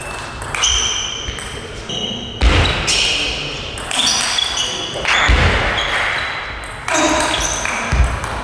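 Table tennis rally: the celluloid-type plastic ball clicking off the rubber-faced bats and bouncing on the table, each hit a sharp click with a short high ping. Several louder thuds with a rush of noise come about two and a half, five, seven and eight seconds in.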